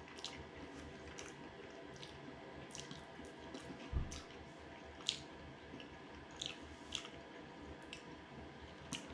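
Close-miked chewing of a mouthful of steak pie with gravy: quiet, wet mouth clicks and squishes scattered throughout, with one soft low thump about four seconds in.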